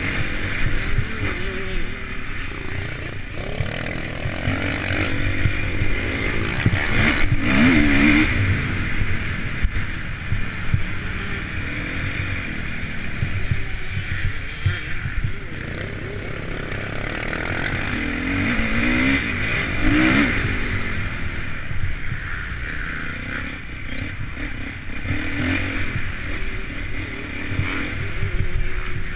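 Honda CRF450 motocross bike's single-cylinder four-stroke engine being ridden hard, revving up and down through gear changes, heard from a camera mounted on the bike. The revs climb and drop several times, most strongly about a third of the way in and again about two-thirds of the way in.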